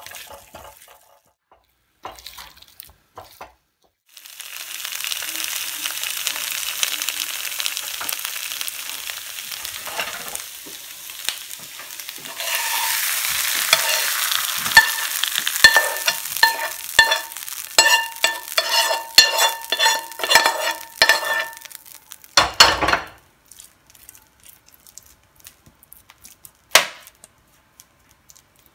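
Marinated potato chunks sizzling as they are stirred and turned in a hot pan, with a metal spoon scraping and clinking against the pan; the scraping grows louder about halfway through. A heavy thump comes near the end, then a few light clicks.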